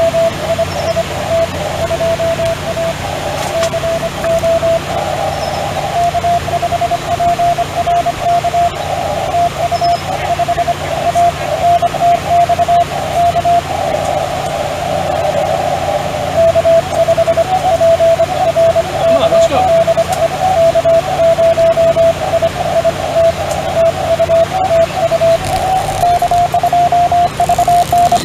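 Morse code (CW) from a ham radio transceiver's speaker: a single high tone keyed on and off in quick dots and dashes, over steady band hiss.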